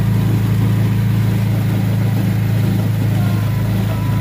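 Engine of an antique-style ride car running at a steady speed, a constant low hum heard from aboard the car.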